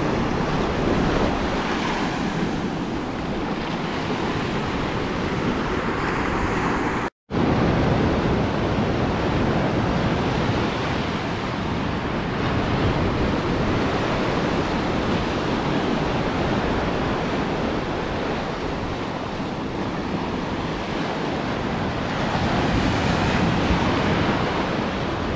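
Ocean surf washing onto a beach, a continuous steady wash of waves with wind buffeting the microphone. The sound cuts out completely for a moment about seven seconds in, then resumes.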